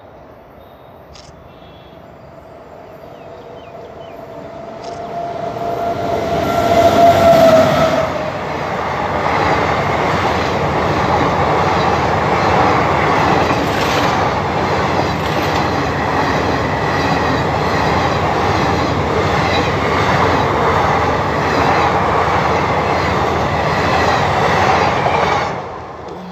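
Express passenger train hauled by a WAP7 electric locomotive passing at speed. It is heard approaching for several seconds, with one sustained tone swelling until about eight seconds in. Then the coaches rush past for about seventeen seconds with a rhythmic clickety-clack of wheels over the rail joints, and the sound drops away sharply near the end.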